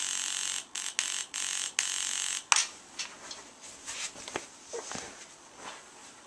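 Choppy bursts of loud static-like hiss for about two and a half seconds, from the audio feed that is jittering the homemade CRT oscilloscope's trace. The hiss cuts off with a sharp click, followed by a few faint clicks.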